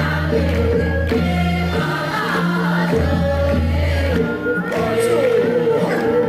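A group of singers singing a Korean folk song (minyo) together in unison over a recorded backing accompaniment with a steady bass line.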